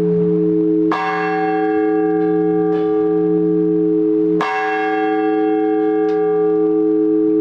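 Large Orthodox church bell tolling the blagovest, the measured single-bell ringing that calls people to the liturgy: two strokes about three and a half seconds apart, each leaving a long, humming ring that carries on under the next.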